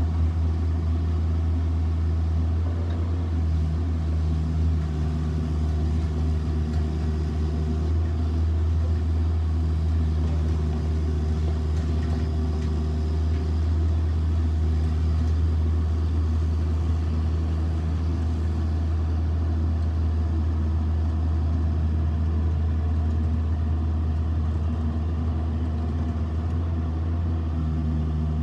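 Bobcat 334 mini excavator's diesel engine running steadily as the machine digs in a gravel pile. A higher tone rises over the engine and drops away again several times as the machine is worked.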